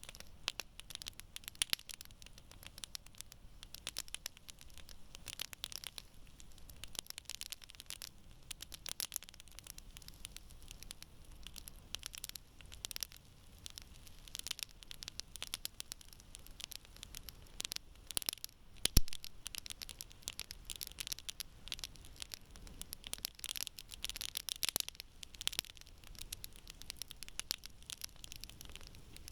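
Wood campfire crackling: a steady run of small, irregular pops and snaps from burning logs, with one loud sharp pop about two-thirds of the way through.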